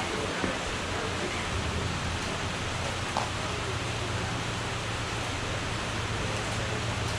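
Steady background noise with a low hum underneath and two faint knocks, the first early and the second about three seconds in.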